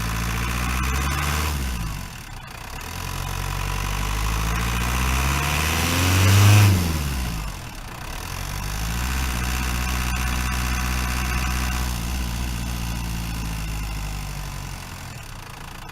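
Renault Master 2.8 dTi van's four-cylinder turbodiesel engine while driving. Its pitch dips about two seconds in, then climbs to a loud peak around six and a half seconds before dropping sharply. It holds steady for a few seconds, then eases off and quietens near the end.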